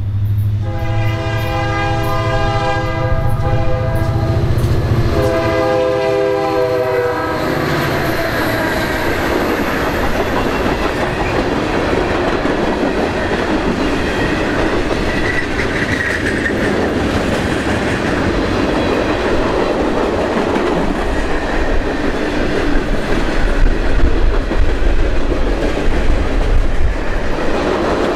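A heavy freight train's two EMD SD40-2 diesel locomotives sound a multi-note air horn and work hard as they pass; the horn stops about seven seconds in. The long string of freight cars then rolls by with steady wheel clatter and rumble over the rail joints, loudest late on.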